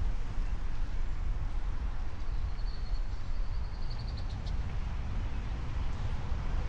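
Wind buffeting the microphone in a steady low rush, with a faint, high, rapid bird trill for about two seconds around the middle.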